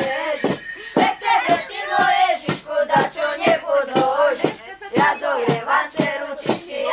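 A group of carolers chanting a nativity carol together, with sharp rattling knocks about twice a second keeping the beat.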